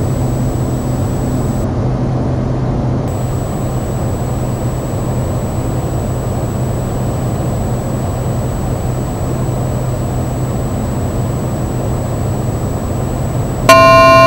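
Steady drone of a Cessna 208 Caravan's PT6A turboprop engine and propeller heard in the cockpit in flight. Near the end a loud electronic tone sounds for about a second.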